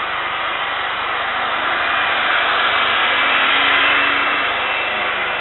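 Boeing 747-400F's four jet engines running at taxi power as the freighter turns on the runway. It is a steady, hissing rush that swells a little about three to four seconds in.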